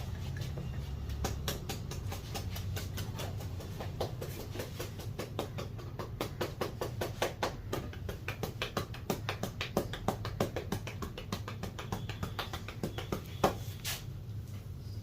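Rapid light tapping of a barber's hands during a head and back massage, about five to six taps a second, with one louder, sharper snap near the end.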